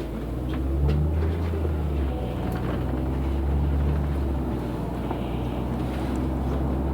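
Engine and drivetrain of a LiAZ 6213.65 articulated city bus running with a steady low drone, heard from inside the passenger cabin, growing a little louder about a second in as the bus gets under way.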